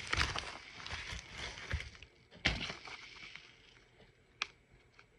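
A package being opened by hand: rustling and crinkling of packaging and paper for the first couple of seconds, a sharp knock about two and a half seconds in, and a small click near the end.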